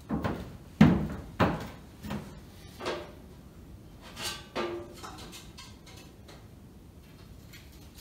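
Footsteps in work boots knocking on a wooden plank floor, about one every two-thirds of a second, followed by two lighter knocks about four and a half seconds in.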